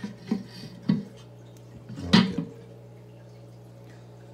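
Glass aquarium lid being handled and set back on the glass tank: a few clinks and knocks of glass on glass, the loudest about two seconds in, with a brief ring after it.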